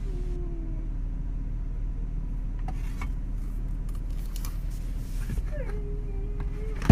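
A steady low hum, with a dog giving two long whines that slide down in pitch, one at the start and one near the end.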